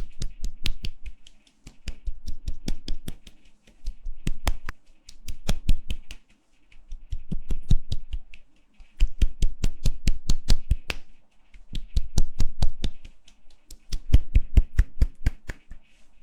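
Rapid hand clapping close to the microphone, several sharp claps a second in runs of about two seconds with short pauses between them.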